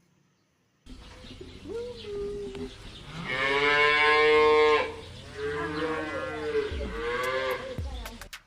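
Cow mooing: a quieter call about a second in, then a long, loud moo, followed by a second moo whose pitch wavers up and down.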